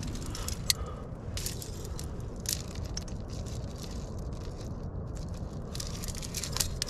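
Climbing gear clinking and rattling: nuts and carabiners on the rack knocking together in scattered sharp clicks and short jangles as the climber handles it, over a steady low rumble.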